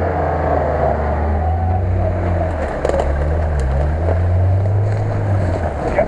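UAZ-469 engine running hard under load while the vehicle is pulled on a tow line up a muddy slope. The engine note dips and wavers about halfway through, then steadies again.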